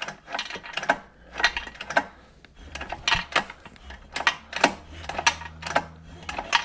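Irregular metallic clicks and ticks, several a second, as the generator's small engine is turned over slowly by hand during a valve clearance adjustment. A faint low hum joins underneath about halfway through.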